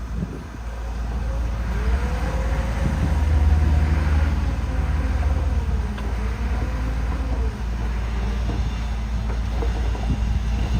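Heavy diesel engine of earth-moving machinery running under load, a steady low rumble that builds to its loudest about three to four seconds in, then eases a little.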